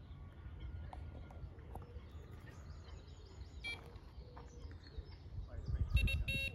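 Outdoor bankside sound: wind rumbling on the microphone, with a few faint bird chirps. Near the end comes a louder rush of low noise and two short, sharp high-pitched bursts.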